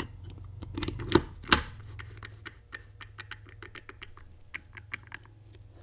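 Steel clutch discs and the side gear of a Dana 44 Powr-Lok limited-slip differential clicking and clinking as the gear is jiggled down onto the splines of the clutch pack in the case half. Two louder clanks come a little over a second in, then many light rapid ticks, over a steady low hum.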